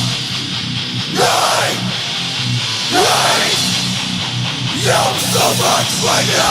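Heavy hardcore music with distorted guitars; the deepest bass drops out right at the start, leaving a thinner, rhythmic guitar-driven part.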